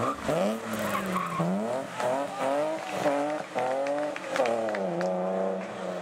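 A BMW E36 3 Series rally car's engine is revved hard on a stage. Its pitch climbs, breaks off and climbs again several times as it shifts gear, with short drops in between.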